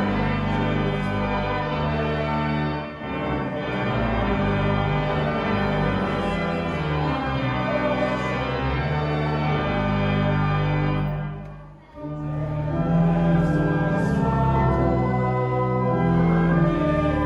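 Church organ playing a hymn with voices singing along in held chords, pausing briefly just before the halfway point between phrases before going on.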